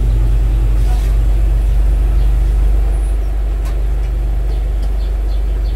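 Steady low rumble of an engine running, a little louder over the first couple of seconds.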